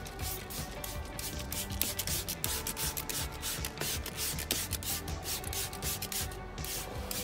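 Hand trigger spray bottle squirting cleaner onto a rubber truck floor liner, a rapid run of short hissing sprays, several a second, over background music.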